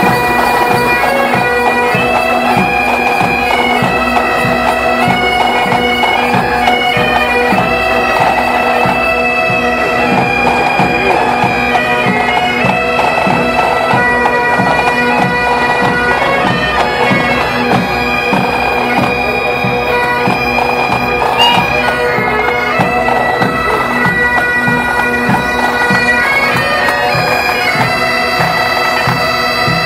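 Bagpipes playing a tune over their steady drones, with a regular low beat underneath.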